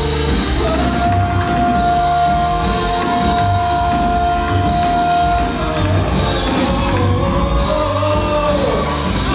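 Live rock band music led by a drum kit, with one long held sung note lasting about five seconds before the melody slides downward near the end.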